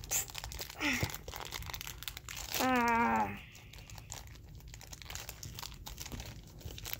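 Plastic candy wrapper crinkling and crackling in the hands as it is worked at, a packet that is hard to get open. About three seconds in, a short vocal sound from a person, the loudest thing here, rises over the crinkling.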